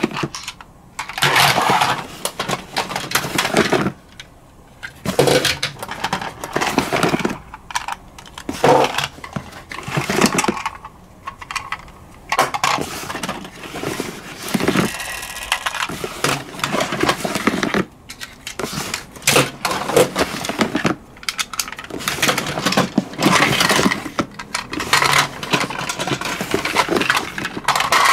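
Plastic toy ambulances clattering against one another and rustling through the paper flaps of a cardboard box, in repeated bursts every second or two.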